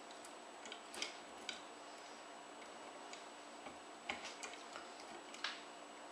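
Copper wire rings of a homemade orbitron sculpture clicking and tapping as a hand flicks them into a spin. There are a few sharp, irregular clicks: one about a second in, another half a second later, a cluster around four seconds and a last one near the end, over a faint steady hum.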